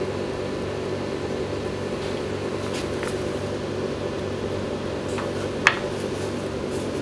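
Steady hum of kitchen ventilation fans. A few light clicks; the sharpest, about five and a half seconds in, comes as the stainless steel rectangular mould is lifted off the plate.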